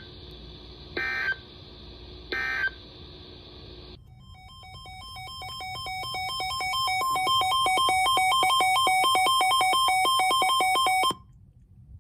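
Emergency Alert System end-of-message data bursts over radio hiss: two short, screechy bursts about 1.3 seconds apart, closing a weather alert. About four seconds in, a rapidly pulsing two-tone electronic beeping fades in, swells over several seconds and cuts off suddenly.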